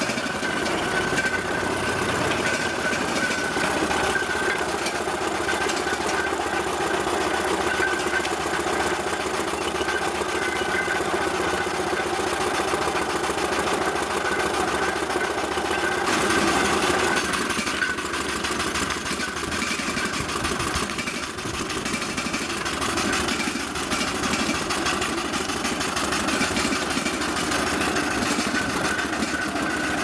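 4-inch scale Fowler BB1 ploughing engine running under steam, with a fast steady beat and the clatter of its motion and gearing, and a thin steady high tone over it. The sound changes about halfway through, then carries on just as steadily.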